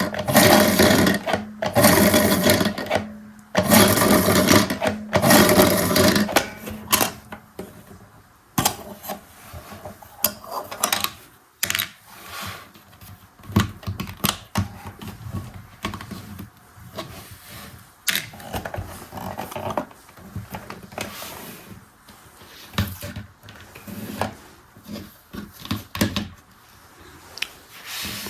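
Mini toy washing machine whirring in four short bursts over the first six seconds, then scattered plastic clicks and knocks.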